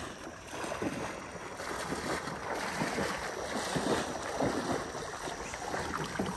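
Legs in chest waders sloshing through shallow water, an irregular run of splashing steps that grows louder toward the end, with some wind on the microphone.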